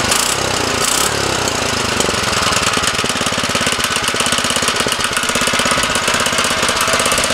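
Small 97cc single-cylinder flathead engine running, its head held down by a hydraulic press through a wooden board instead of head bolts. It runs unevenly for about two seconds, then settles into a steady fast beat.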